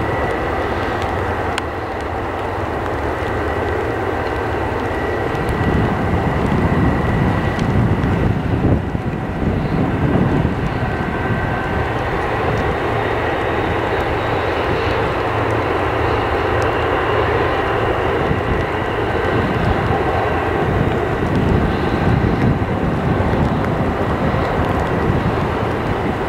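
Boeing 787-9 Dreamliner's jet engines running as the airliner turns on the runway to line up: a continuous roar with a thin steady whine, and a deeper rumble that swells twice.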